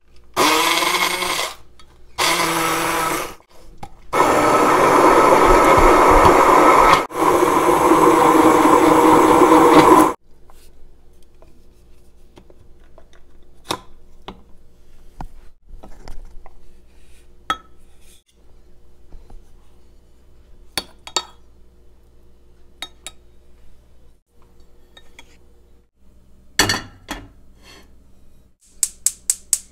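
Hand-held immersion blender run in four bursts, two short then two of about three seconds, blending oats, egg and banana into pancake batter in a glass measuring jug. Afterwards there are faint scattered clicks and knocks, and near the end a quick run of sharp clicks.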